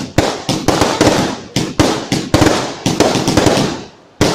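Fireworks bursting in rapid succession, about two sharp bangs a second, each trailing off as it fades. The bangs stop for a short lull near the end, then one more bang comes just before the end.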